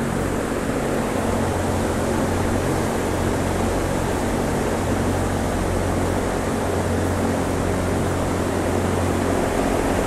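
Greenhouse ventilation fans running: a steady rush of air with a low, even hum.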